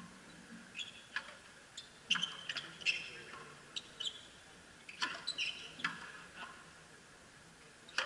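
Frontenis play on a fronton court: irregular sharp cracks of the rubber ball struck by rackets and hitting the wall and floor, mixed with short high squeaks of players' shoes on the court surface.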